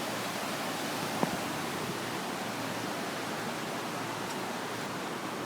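Steady rush of fast-flowing floodwater from the swollen Bronx River, with a single short click about a second in.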